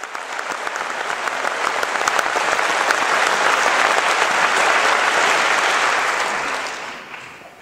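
Concert audience applauding, the clapping swelling over the first few seconds and then dying away near the end.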